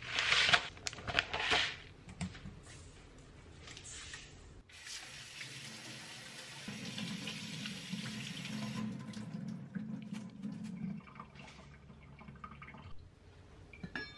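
Water running from a tap into a kitchen sink: splashing at first, then a steady stream for a few seconds, with a few small clinks.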